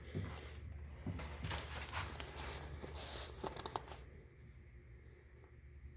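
Rustling and handling noise with scattered light clicks and knocks for about four seconds, then quieter.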